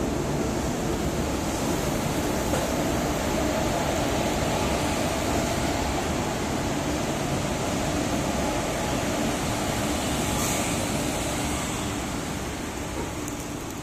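Indian Railways electric locomotives, a WAG-7 followed by a second coupled locomotive, running past close by: a steady rumble of wheels and running gear on the rails. It fades away near the end as the last locomotive clears.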